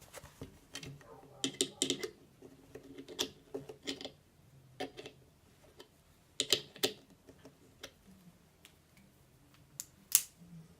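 Irregular sharp metal clicks and snaps from a Gerber Suspension multi-tool being worked in the hand, its spring-loaded pliers and wire cutters opening and closing, with the loudest snap near the end.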